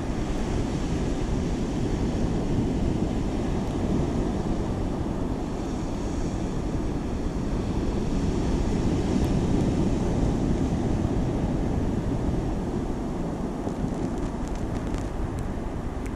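Small waves breaking on a sandy beach, with wind buffeting the microphone; a steady low rushing that swells a little about halfway through.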